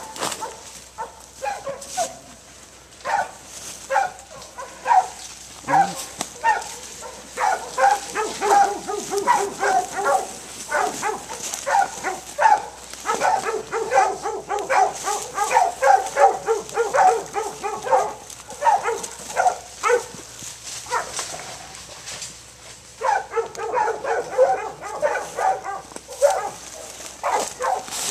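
Mountain Cur hunting dogs barking in rapid runs of short barks, several a second, with a brief lull about three-quarters of the way through.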